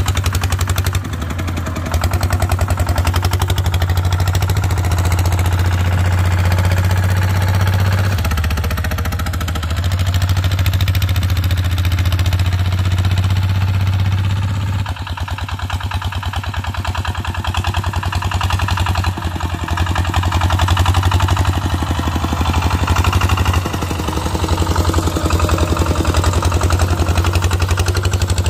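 Kubota two-wheel hand tractor's single-cylinder diesel engine running steadily under load, chugging with an even low pulse as it pulls a heavily loaded trailer over rough ground.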